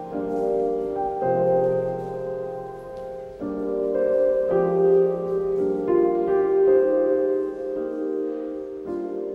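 Slow piano music: sustained chords, with a new chord every second or so.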